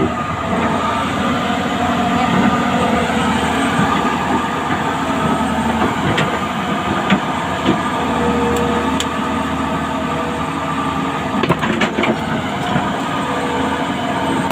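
Excavator's diesel engine running steadily, with sharp metallic clanks and knocks from the steel track chain; a cluster of knocks comes near the end.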